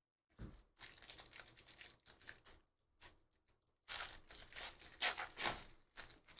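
Foil wrapper of a 2023 Panini Phoenix Football hobby pack being torn open and crinkled by hand, in bursts of crackly rustling that get louder about four seconds in.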